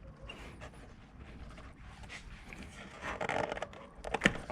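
Hard plastic air box parts being worked loose by hand: scattered light clicks and rubbing, a louder scraping patch about three seconds in, and a sharp snap near the end.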